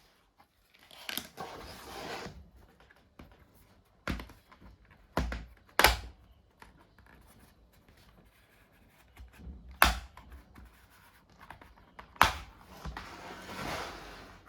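Hands working on a laptop during a RAM upgrade: a handful of sharp clicks and knocks of small hard parts, with two spells of rustling, one near the start and one near the end.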